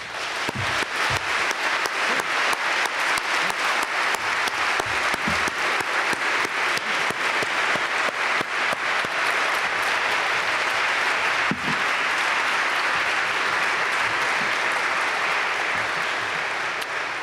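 Audience applauding: many hands clapping, breaking out at once and holding steady, then easing off slightly near the end.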